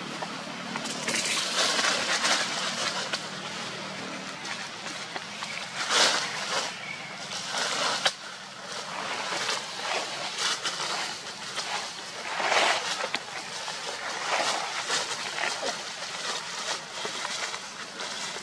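Dry leaf litter rustling and crunching in uneven bursts as long-tailed macaques scuffle and wrestle on it.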